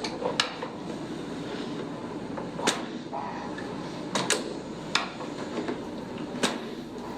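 A series of sharp, short clicks and knocks, about six spread over several seconds, two of them close together near the middle, over a steady low hiss.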